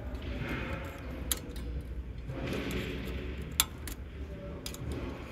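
A few sharp metal clicks and taps from a screwdriver and small parts being worked on a printer carriage's printhead support plate, the loudest about three and a half seconds in, over a steady low hum.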